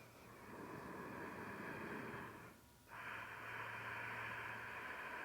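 Long, slow breaths drawn in and out through the nose: one breath of about two seconds, a short pause, then a second longer breath, a deep yogic breathing pattern.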